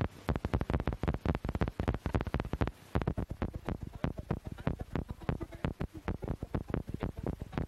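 A rapid, uneven run of sharp clicks and knocks, about half a dozen a second.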